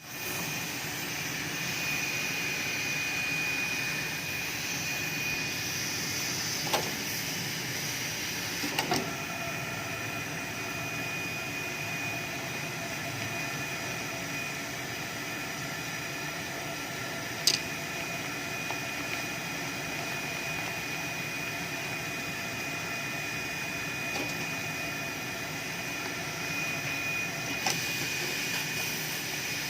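A 'siller' sewing machine for raincoats running steadily: a motor's even hum and hiss with a constant high whine over it. There are a few sharp clicks, one about seventeen seconds in.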